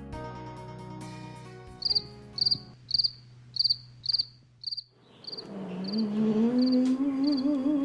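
Crickets chirping in short, even pulses about twice a second as the last music notes die away. About five and a half seconds in, a slow, wavering hum rises in, the start of a lullaby.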